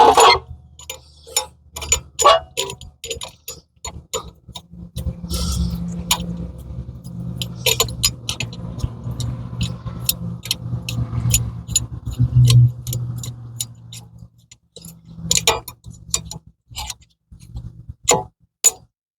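Irregular metal clicks and clinks of a bar-type brake caliper press tool being worked to push the caliper piston back in. A low hum runs under the clicks through the middle seconds.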